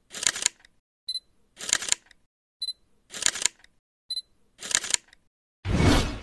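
Camera shutter sounds repeating evenly about every second and a half: each time a short focus beep, then the shutter click, four shutters in all. Near the end comes a louder single hit whose sound fades out slowly.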